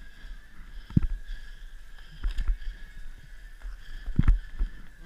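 Skis shuffling through soft, slushy snow with three dull thumps, about a second in, around two and a half seconds, and just past four seconds, close to the camera. A faint steady high tone runs underneath.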